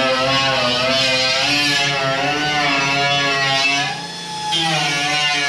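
Background music: a guitar-driven track with steady bass notes under a sustained lead line that bends up and down in pitch.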